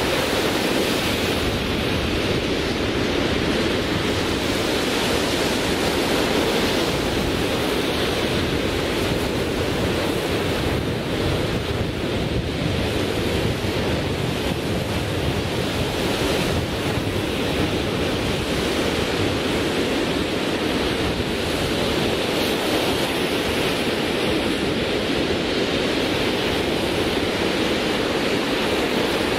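Sea surf breaking on a sandy beach: a loud, steady rush of waves with no single break standing out.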